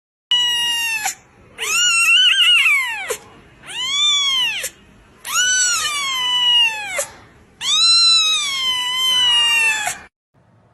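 Young kitten meowing loudly and insistently: five drawn-out, high-pitched cries that mostly rise and then fall in pitch, with the last two the longest.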